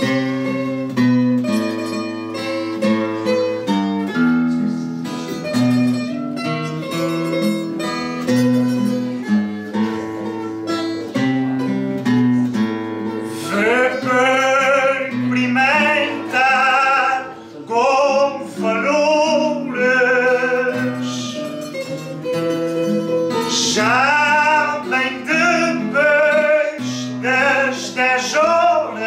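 Viola da terra and guitar playing a plucked-string tune. About thirteen seconds in a singer joins with a wavering, vibrato voice, pausing briefly around twenty-two seconds and then singing again.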